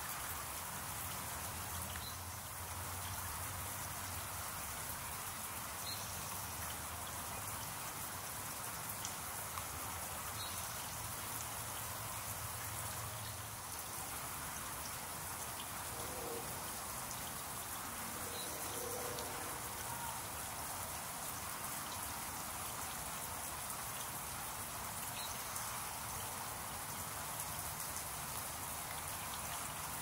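Small garden water fountain splashing steadily, its jet of droplets falling back with a continuous patter.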